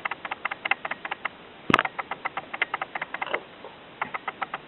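A sick kitten feeding: rapid wet smacking clicks from its mouth, about seven a second. There is one louder click about a second and a half in, and a brief pause before the clicking picks up again near the end.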